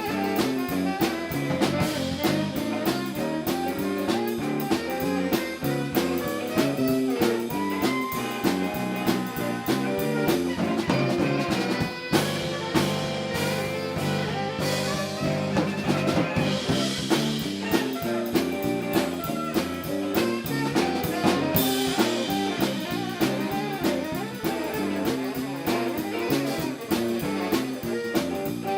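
Live band playing an instrumental jazz-funk number: a drum kit keeps a steady beat under a moving bass line, with a stretch of held chords about halfway through.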